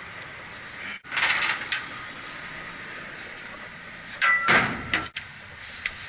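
Metal parts clanking: a short clatter about a second in, then a louder clank with a brief metallic ring about four seconds in, over a steady hiss.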